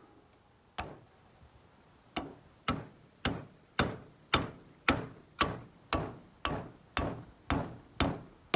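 Hammer tapping on a drill bit rammed into a bearing bore packed with bread, which forces out a blind bearing. One tap, then a steady run of sharp taps at about two a second.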